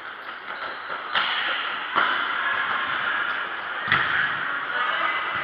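Futsal ball being kicked and struck: three sharp thuds, about a second in, two seconds in and near four seconds in, each ringing on in the echo of a large sports hall, over a steady din of distant play.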